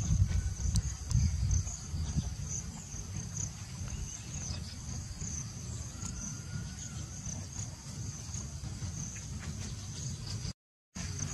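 Insects chirping in an even high-pitched pulsing trill, over a low rumbling background noise. The sound cuts out completely for about half a second near the end.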